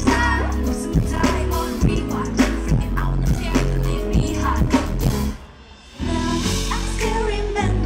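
Pop dance track with a heavy bass beat and singing. About five seconds in it cuts out for under a second, then the beat comes back.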